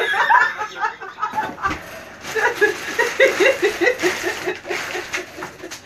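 A person laughing: a long run of quick, even 'ha' sounds, about five a second, with a dull thump about one and a half seconds in.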